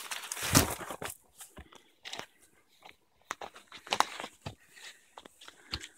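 Footsteps crunching over dry leaf litter and twigs on a forest floor, with spruce branches brushing past: a run of irregular crunches and knocks, loudest in the first second.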